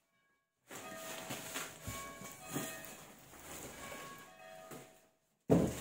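Church bells ringing steadily in the background, with cardboard boxes rustling and knocking as they are handled. The sound cuts out completely for a moment at the start and again near the end.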